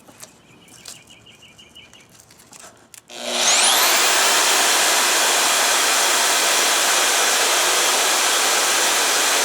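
Milwaukee 6232 corded portable bandsaw starting about three seconds in with a quickly rising whine, then running steadily and loudly as it saws through a piece of metal.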